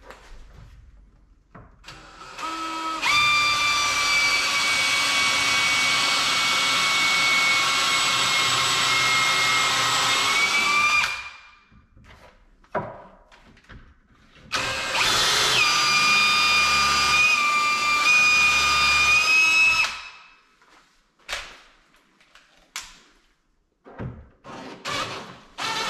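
DeWalt cordless drill running into the side of a wall cabinet in two long, steady stretches of about eight and five seconds, its motor whine rising as it spins up. A few short knocks follow near the end.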